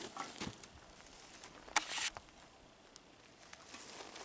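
Wet mine-tailings slurry in a plastic wheelbarrow, squishing and sloshing as a long-handled tool works in it, with scattered small knocks and one brief louder rush of noise about two seconds in.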